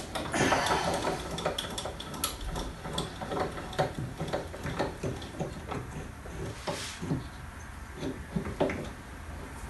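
Metal parts and tools clinking and knocking irregularly as a new bearing is worked onto a car alternator's rotor shaft by hand. A brief scraping rasp comes about seven seconds in.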